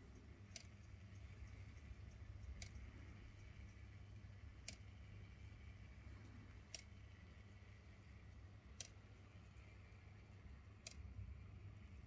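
Near silence: a faint low hum with a single sharp click repeating evenly, about once every two seconds.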